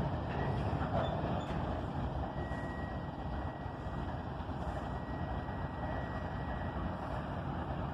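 Four diesel freight locomotives (GE ET44AC, GE Dash 9, EMD SD70ACe, GE ES44DC) idling on a stopped train: a steady low rumble. A thin high whine joins in a couple of seconds in and holds steady.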